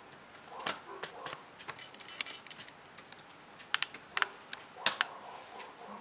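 Laptop keyboard typing: irregular key clicks, some in quick runs, with the sharpest strikes about five seconds in.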